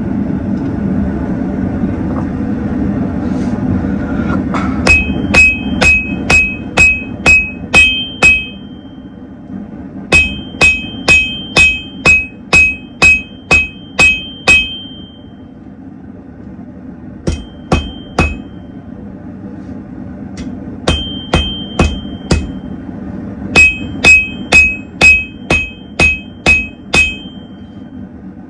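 Hand hammer forging hot blade steel on an anvil: several runs of strikes, about two a second, each leaving a short high ring. For the first few seconds only a steady low roar of the forge is heard.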